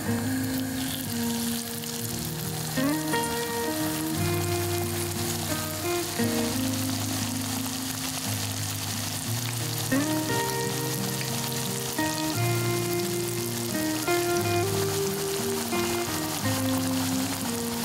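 Cubed potatoes on a sheet of parchment paper sizzling and bubbling in hot vegetable oil, a steady frying hiss, with soft melodic background music underneath.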